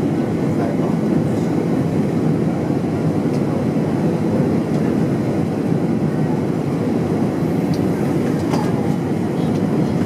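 Airbus A320 cabin noise during the approach: a steady rumble of the engines and the airflow past the fuselage, heard inside the cabin by a window over the wing, with a few faint rattles.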